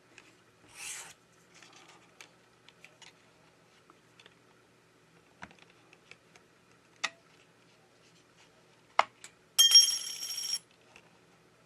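Small clicks and taps of repair tools working on a phone, with a sharp click about nine seconds in followed by a short ringing metallic clatter.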